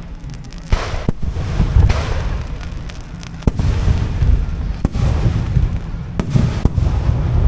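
Aerial firework shells bursting overhead: about six sharp bangs, unevenly spaced, over a continuous low rumble.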